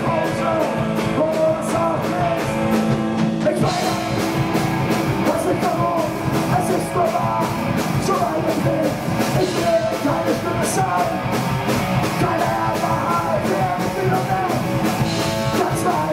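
Punk rock band playing live: electric guitars and drums with singing. The cymbals get louder about three and a half seconds in.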